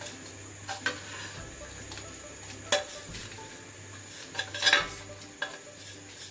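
A steel plate knocking and scraping against the rim of an aluminium kadhai as whole spices, dried red chillies among them, are tipped and brushed into hot oil, with a light sizzle as they land. There are a few sharp clinks, the loudest a little before five seconds in.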